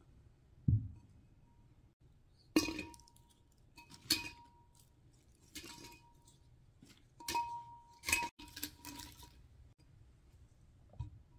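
Pine cones dropped one at a time into a clear glass bowl: about six sharp clinks, each leaving a short glassy ring. A soft low thump comes about a second in as the bowl is set down.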